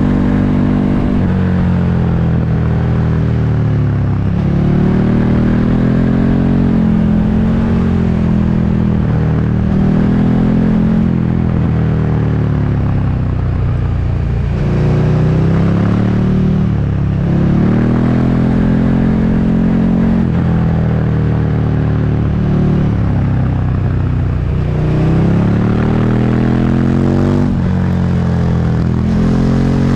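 Motorcycle engine under way, its pitch climbing and dropping back over and over as it pulls and eases off, over steady wind and road noise.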